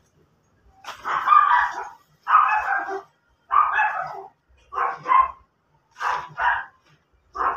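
A dog barking repeatedly, about seven loud barks roughly a second apart, the later ones coming in quick pairs.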